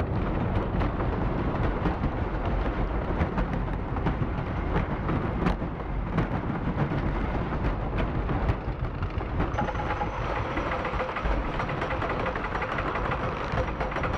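Roller coaster ride soundtrack played over speakers inside an inflatable planetarium dome: a steady rumble and rattle of the coaster car running along its track, with many short clicks. A faint high whine joins about two-thirds of the way in.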